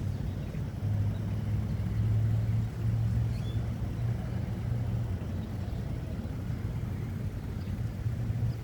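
Low steady hum of a vehicle engine, strongest for the first few seconds and easing off after.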